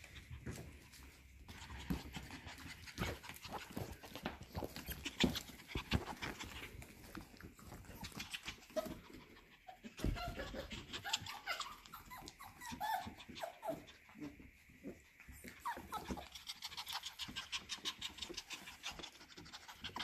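F1B cockapoo puppies panting while their claws click and scrabble quickly on a hardwood floor as they run and jump up.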